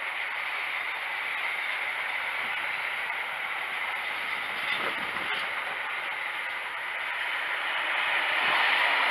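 Container freight train's wagons rolling past on the rails: a steady rushing noise of steel wheels on track, getting a little louder near the end.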